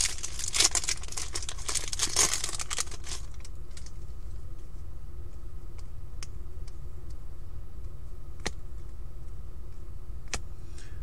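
Foil wrapper of a Panini Prizm football trading-card pack being torn open and crinkled for about the first three seconds, followed by a few faint clicks.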